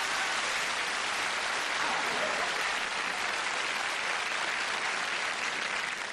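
Studio audience applause, steady and loud, starting to die away at the very end.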